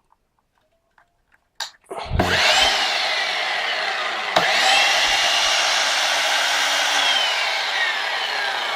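Aldi Xfinity Plus 20V cordless sliding mitre saw running free with its 216 mm blade: after a click the motor spins up with a rising whine about two seconds in, is re-triggered with another click and spin-up around four seconds in, then runs steadily until its whine sinks in pitch near the end.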